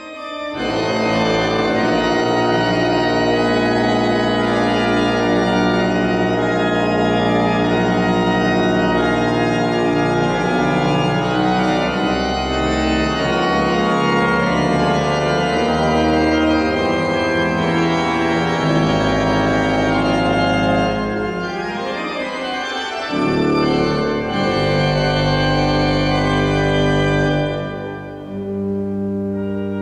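Large pipe organ in the Bernardine basilica in Leżajsk playing a full-voiced piece: sustained chords and a moving upper line over held pedal bass notes. The bass drops out for a moment about 22 seconds in, and the sound thins near the end.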